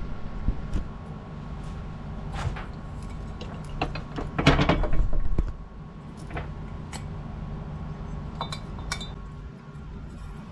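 Metal clinks and knocks as the freshly welded headlight bracket and its parts are handled and tried for fit, with a louder clatter about four and a half seconds in, over a low steady hum.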